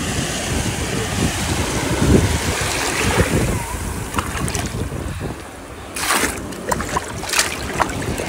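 Shallow surf washing in over wet sand at the water's edge, with wind rumbling on the microphone. A few short, sharp splashes come near the end.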